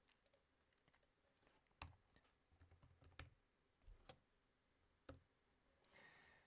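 Faint computer mouse and keyboard clicks over near silence: four sharp clicks roughly a second apart, with a few softer taps between the first two.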